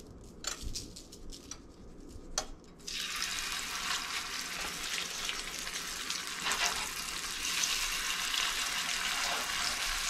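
Lake trout fillets laid into hot oil in a frying pan: a few light taps while handling, then sizzling starts suddenly about three seconds in and keeps up as a steady crackling hiss while the fish sears.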